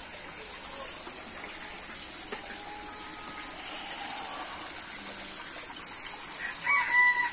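Steady gush of running water in a backyard aquaponics system as its water circulates. A short high whistling note sounds near the end.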